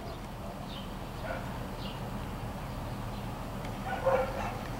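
A dog barking a few times, faintly at first and loudest about four seconds in, over a steady low hum.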